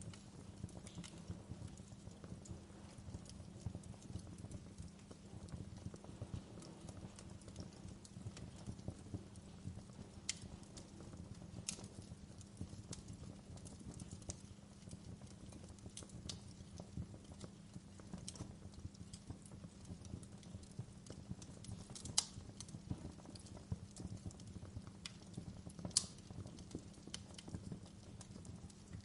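Fireplace fire crackling: a dense low crackle with occasional sharper pops.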